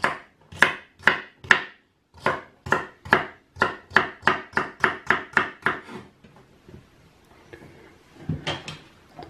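Kitchen knife chopping celery on a wooden cutting board: a run of sharp knocks of the blade on the board, speeding up from about two to about four a second, then stopping about six seconds in. A few softer knocks follow near the end.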